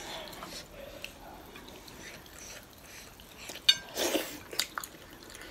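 Quiet mouth sounds of eating by hand: faint chewing and smacking. Just before four seconds in there is a quick run of clicks, then a short, louder noisy mouth sound.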